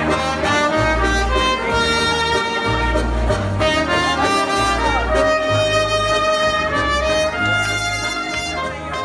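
Live jazz band playing: a trumpet carries the melody over an electric keyboard and a bass line. The music grows quieter near the end.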